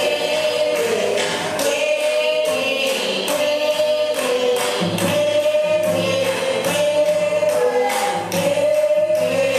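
A group of voices singing a playful Afro-Colombian game song together, over a steady beat of sharp percussive strikes about twice a second.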